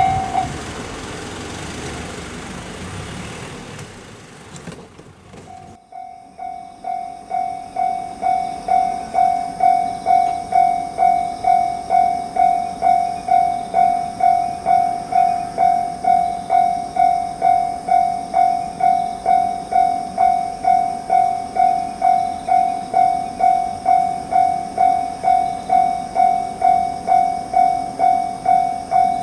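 Japanese level-crossing warning bell ringing its repeated 'kan-kan' strike, a little under two strikes a second, starting suddenly about six seconds in and growing louder over its first few seconds before holding steady. Before it, a steady rushing noise fades away.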